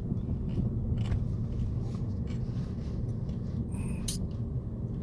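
Car moving, with the steady low rumble of engine and road noise heard from inside the cabin, a few faint clicks, and a brief high squeak about four seconds in.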